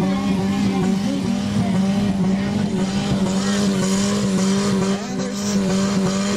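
Car engine running at a steady speed, a loud, even drone, with faint voices mixed in.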